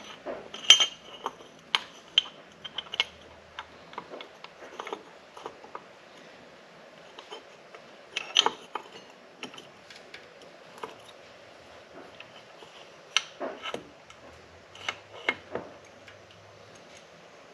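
Irregular metallic clicks and clinks as a Wiseco piston is handled, lined up and fitted in a Honda Odyssey FL350 engine. The clicks come loudest in a few clusters: about a second in, around eight seconds in, and between thirteen and sixteen seconds in.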